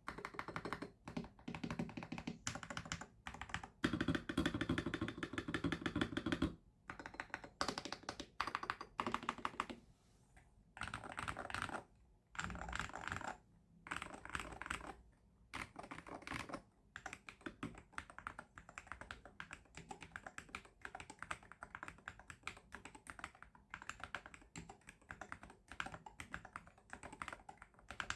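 AJAZZ AK680 HE magnetic-switch gaming keyboard being typed on for a sound test: quick, irregular keystroke clacks in runs with short pauses, including a very fast continuous run of keystrokes from about four to six and a half seconds in.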